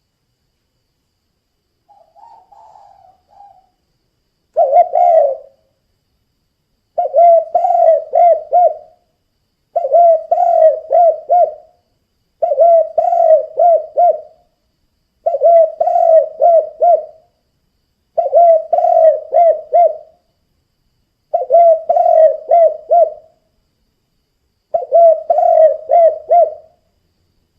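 Spotted dove (tekukur) cooing in its "kuk 2" style: a faint soft call, then a phrase of several quick cooing notes repeated eight times, about every three seconds.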